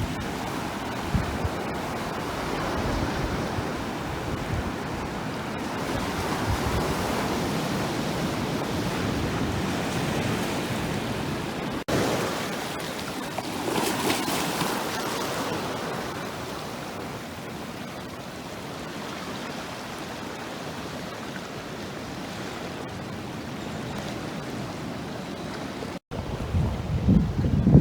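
Ocean surf washing onto a beach, with wind buffeting the microphone; the wash swells and eases, and cuts off briefly twice.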